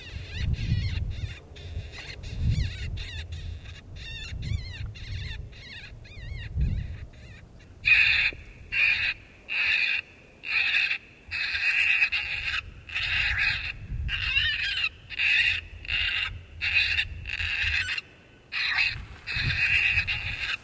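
Electronic predator call playing cottontail rabbit distress cries to lure coyotes. The cries start soft and quick, then about eight seconds in turn louder and repeat about once a second.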